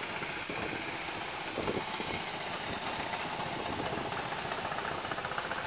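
An engine running steadily in the background.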